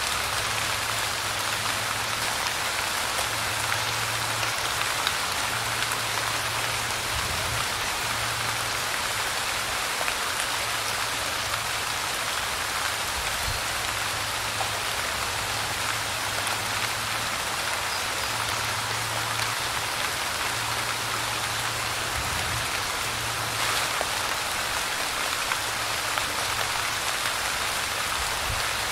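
Steady light rain falling on a surface, an even patter with scattered individual drops.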